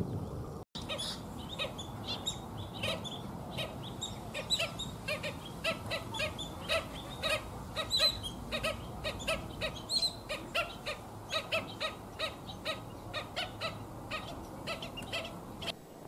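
A flock of banded stilts calling: a dense string of short, overlapping calls, several a second, that stops just before the end.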